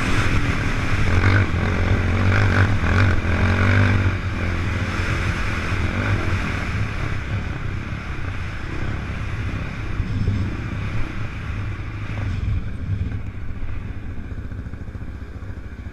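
Off-road machine's engine under a rider on sand dunes, heard from a helmet-mounted camera: it revs up about two to four seconds in, then runs lower and gradually quieter toward the end.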